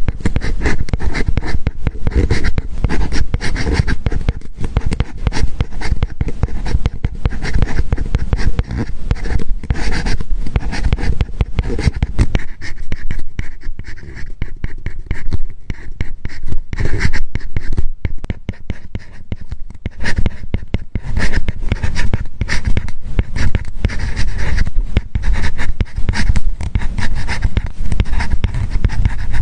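Apple Pencil writing on an iPad's matte paper-like screen protector, close up: a dense run of short scratchy strokes and light tip taps, thinning out for a while in the middle.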